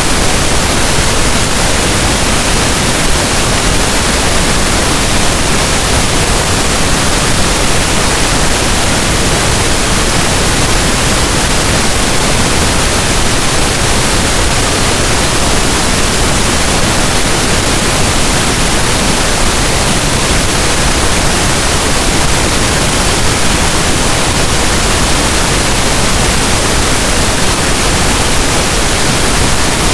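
Steady, loud pink noise: an even hiss over all pitches, with no tones, rhythm or change.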